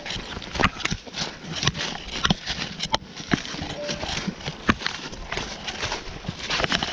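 Footsteps crunching through dry leaf litter and twigs, in an irregular walking rhythm.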